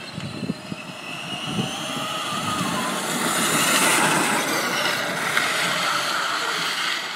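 Ride-on toy car fitted with twin Turnigy 540 brushless motors on 3-cell LiPo packs, driving past: a high electric-motor whine that slides in pitch with the speed, over the rushing roll of its plastic tyres on asphalt. It grows louder as the car comes close about four seconds in and fades near the end.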